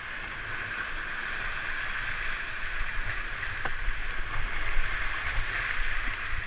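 Whitewater rushing and splashing around a kayak running a rapid, heard close up from the boat, growing louder as it goes, with a low rumble underneath and one brief tap a little past halfway.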